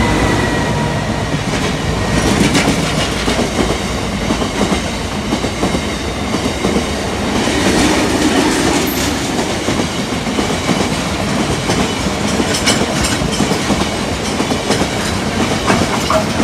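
A Class 60 diesel freight locomotive going by, followed by a long train of bogie oil tank wagons rolling past at speed. The wagon wheels make a steady rumble with repeated clicks over the rail joints.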